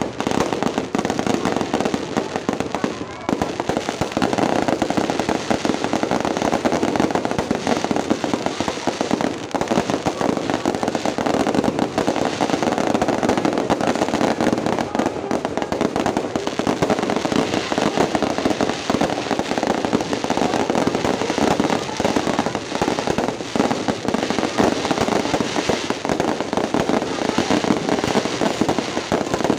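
Fireworks going off in a dense, unbroken barrage of rapid bangs and crackles.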